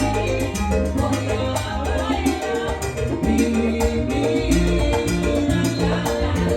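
Salsa band playing: a bass line under melodic instrument lines, with steady percussion.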